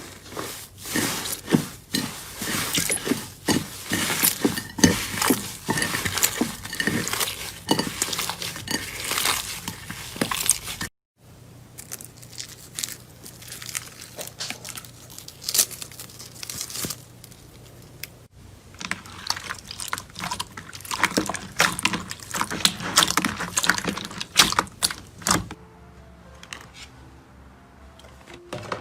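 Slime being squeezed and pressed by hand: dense crackling and popping clicks, with a short break about eleven seconds in.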